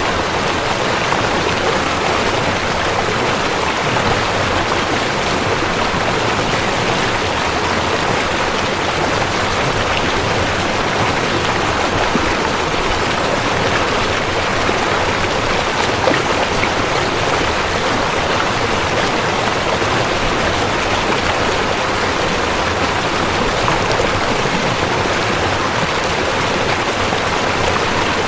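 River water flowing steadily: an even, continuous rushing of water.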